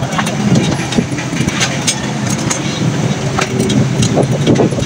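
An engine running steadily, with scattered light clicks.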